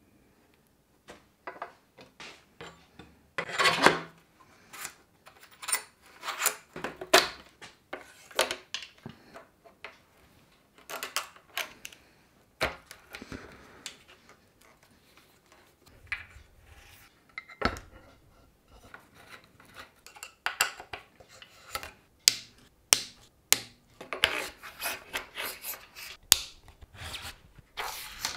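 Bicycle components and hand tools being handled while a mountain bike is assembled in a work stand: scattered irregular clicks, clinks and knocks with stretches of rubbing.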